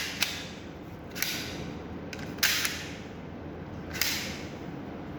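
Plastic handling noises from a nylon toy pistol being turned over in the hands: four short rustles and knocks, roughly one every second or so.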